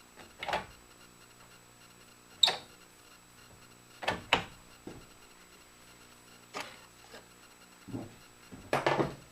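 Scattered short knocks and clicks, about seven, from wood pieces and tools being handled and set down on the table saw; the saw is not running.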